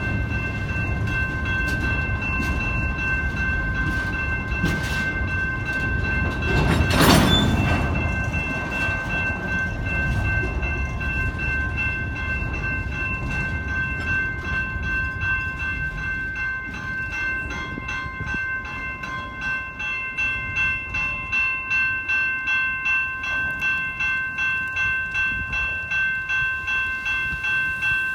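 Train rolling past with a steady high-pitched squeal from its wheels throughout and one loud clank about seven seconds in. In the second half the wheels beat out a regular clickety-clack over rail joints, a little faster than once a second.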